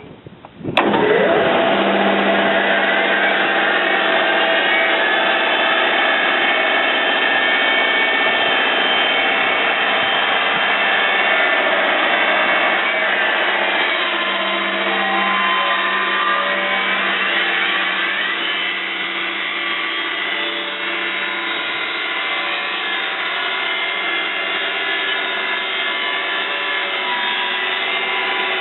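R-60 electric band sawmill running and cutting through a log, starting abruptly about a second in and then holding a loud, steady noise with several ringing tones.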